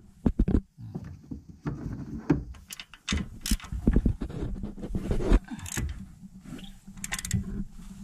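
Irregular metallic clicks and clunks from a long socket bar on the crankshaft pulley bolt of a V6 engine, as the crankshaft is turned by hand to bring it to its timing mark.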